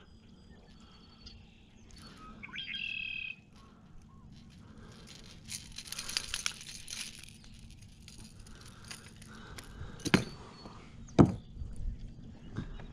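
Handling noise as a fish is unhooked from a treble-hooked jerkbait in a kayak: rustling and faint clinks, a brief high squeak near three seconds in, and two sharp knocks about ten and eleven seconds in.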